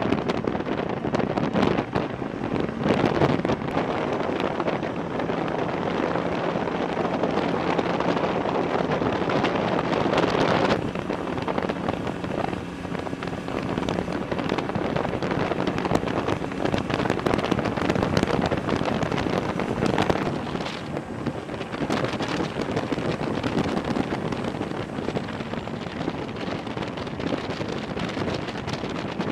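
LAV-25 armoured vehicle's diesel engine running as the vehicle drives, with heavy wind buffeting the microphone.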